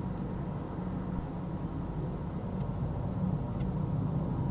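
Distant jet engine rumble of a Boeing 747-400F freighter on final approach, a steady low rumble slowly growing louder as it nears.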